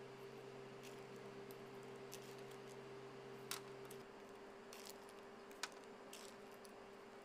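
Faint light clicks and taps of chopped chocolate pieces dropped onto meringue cookies on a baking tray, two sharper ticks about two seconds apart. Under them runs a steady low hum whose deeper part cuts out about four seconds in.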